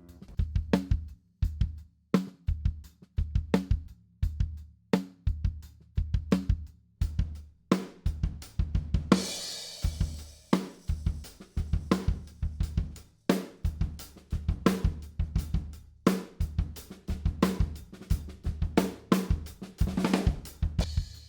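Recorded acoustic drum kit playing a steady groove on kick, snare and hi-hat, with a crash cymbal about nine seconds in and again near the end. It is heard as the full kit mix, with the overhead and mid-side room microphones being muted and unmuted to change its width and sense of room.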